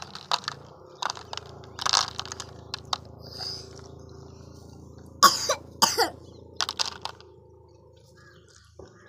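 Irregular clicks, rattles and scrapes of dry fish-feed pellets being scooped by hand and dropped into a plastic toy trolley, with two louder scrapes about five and six seconds in.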